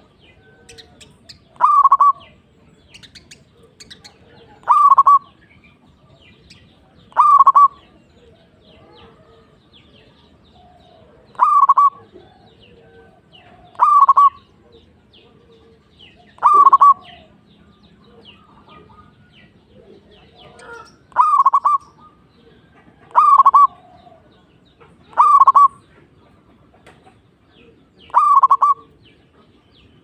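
Zebra dove (perkutut) cooing: a short, loud burst of quick cooing notes, repeated about ten times, mostly every two to three seconds with a couple of longer pauses.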